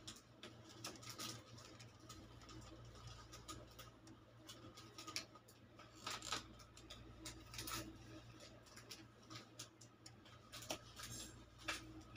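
Faint, scattered light clicks and rustles of gold rings and their paper price tags being handled and set down on a paper-covered table, over a steady low hum.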